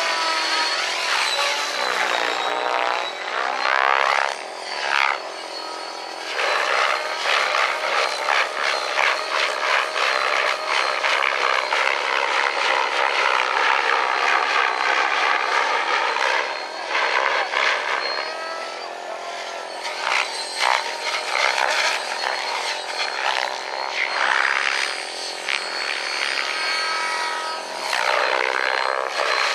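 Radio-controlled model helicopter flying aerobatics: its motor and rotor give a loud, steady, pitched sound that swings up and down in pitch as it flips and passes, with short chopping pulses during the hard manoeuvres.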